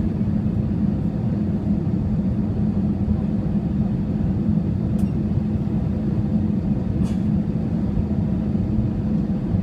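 Steady cabin rumble inside a jet airliner on final approach: the wing-mounted turbofan engines and airflow, with a steady low hum. Two faint clicks come about five and seven seconds in.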